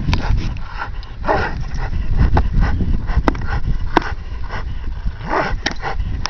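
Belgian Malinois holding a grip on a bite sleeve, making dog sounds as it tugs, with short louder bursts about a second in and again near the end. Two sharp taps come around the middle.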